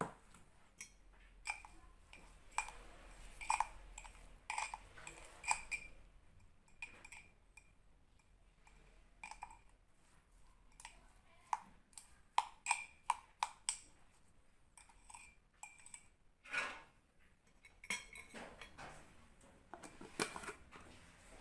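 A metal spoon clinking and tapping against a glass jar over and over, at an irregular pace. Each tap rings briefly. It is the sound of sugar and honey being spooned into the jar of grated turnip.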